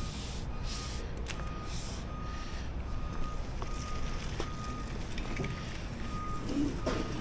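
Vehicle backup alarm beeping at an even rhythm, about one short beep every three-quarters of a second, over a steady low rumble. A single knock sounds near the end.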